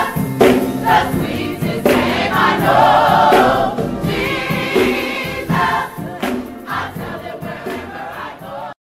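A choir singing gospel music, fading out over the last few seconds and then cutting off abruptly just before the end.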